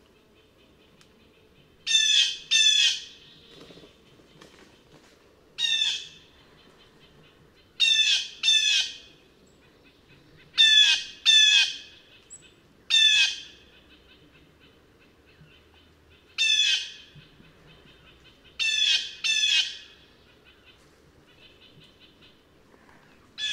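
Blue jay giving its jeer call over and over. The calls come mostly in quick pairs about half a second apart, with a few single calls, every two to three seconds.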